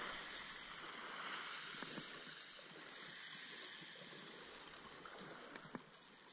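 Spinning reel being wound in several short spells, its gears giving a high, thin whir, over small waves washing onto a shingle beach.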